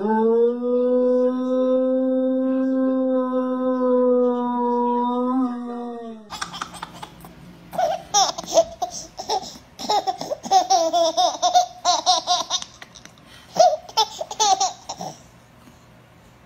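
A dog howls one long, steady note for about six seconds. Then a baby laughs in repeated short bursts of giggles.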